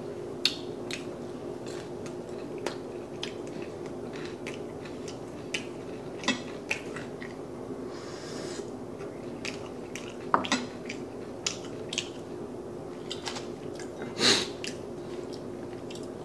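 Close-up eating sounds: chewing of crispy chicken katsu with scattered clicks of chopsticks on dishes, and a short slurp from a soup bowl about eight seconds in. A louder sharp sound comes about fourteen seconds in, over a steady low hum.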